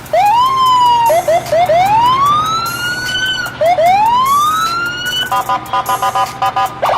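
Electronic siren sounds: several rising whoops that climb and level off, then, from about five seconds in, a rapid stuttering two-tone warble.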